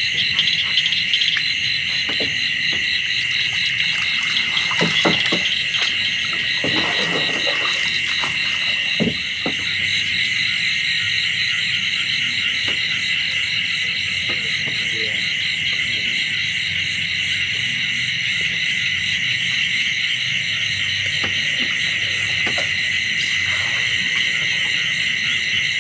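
Dense night chorus of insects, a steady high pulsing trill, with frogs calling underneath. A few brief knocks and rustles come in the first ten seconds or so.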